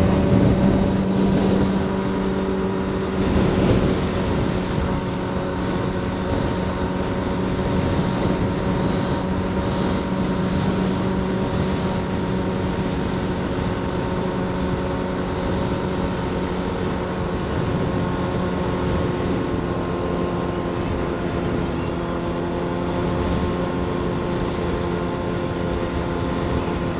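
Motorcycle engine running at a steady cruising speed under a constant rush of wind and road noise, with a brief louder swell about three to four seconds in.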